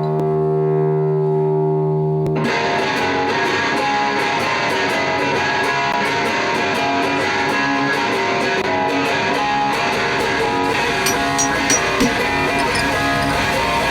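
Intro music with electric guitar: a held chord, then the full band with a steady beat comes in about two seconds in.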